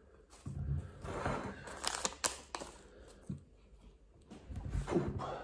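Handling noises from a tea bag on its string being worked over a mug: rustling, with a few sharp clicks about two seconds in.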